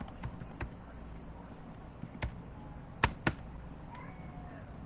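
A few sharp, scattered clicks of computer mouse and keyboard input during text editing, the loudest a little after three seconds in.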